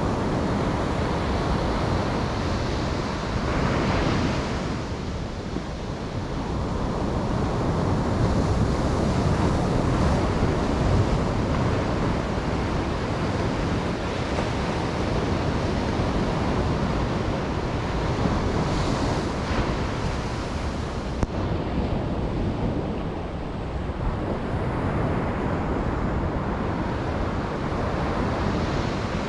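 Ocean waves breaking and washing on a beach, a steady rush of surf with a few swells where a wave breaks, about 4 seconds in and again near 19 seconds. Wind noise on the microphone runs under it.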